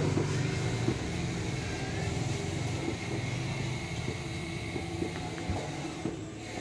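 Motorcycle engine running at idle, a steady low hum that eases slightly about halfway through.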